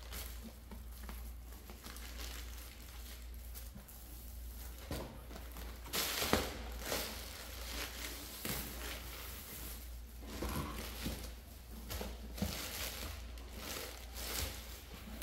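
Plastic packaging crinkling and rustling as a boxed set is unwrapped by hand: clear shrink-wrap film peeled off the box and air-cushion packing bags shifted, with a few sharp crackles. A low steady hum runs underneath.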